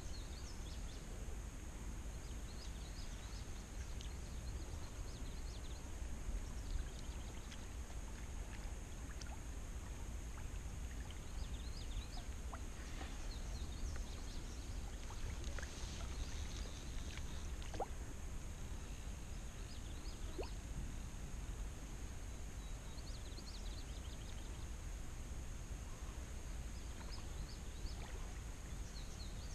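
Quiet outdoor ambience: a steady low wind rumble on the microphone under a constant high hiss, with scattered faint chirps and ticks.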